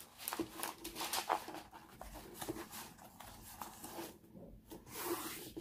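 Parchment paper rustling and crackling as it is handled and laid back over a diamond painting canvas, with scattered light clicks and a louder rustle near the end.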